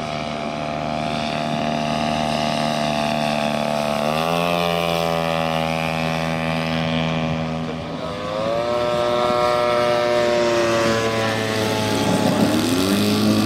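Engines of large-scale RC model aircraft running in flight, more than one engine note at once. The pitch steps up about four seconds in, dips and rises again about halfway, and rises again near the end.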